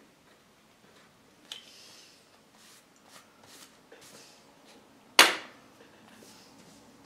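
Snap-off utility knife blade scraping the paper of an old book page, a few short scratchy scrapes and paper rustles. About five seconds in comes one sharp knock, the loudest sound.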